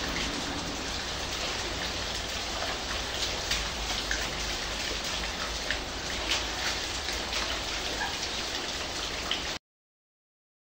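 Steady heavy rain falling, with scattered sharp drips and splashes. The sound cuts off suddenly near the end.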